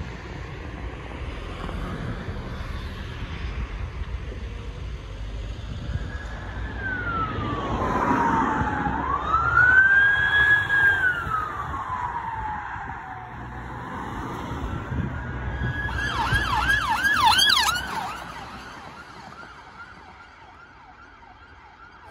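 Emergency vehicle siren passing along a road over traffic noise: a slow wail that falls, rises and falls again, switching a few seconds later to a fast yelp of about four sweeps a second, then fading away.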